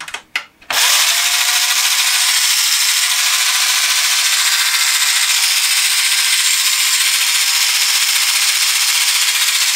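A small DC gear motor is plugged into a USB port with a couple of clicks. About a second in it starts up and runs steadily, driving 3D-printed PLA gears with a loud whirring gear noise and a whine that rises briefly as it spins up, then holds steady. The gears have just been shimmed back into mesh.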